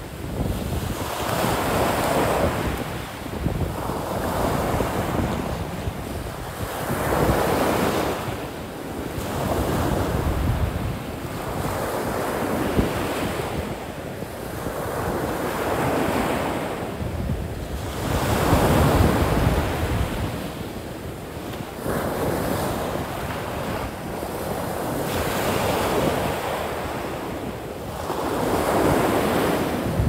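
Ocean surf washing onto a sandy beach, swelling and fading every few seconds as waves break, with wind rumbling on the microphone.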